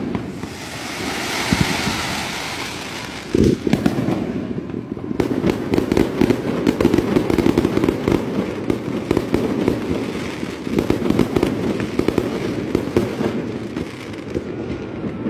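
Fireworks display: a hissing rush for the first few seconds, a single heavy boom about three and a half seconds in, then continuous rapid crackling and popping as shells burst overhead.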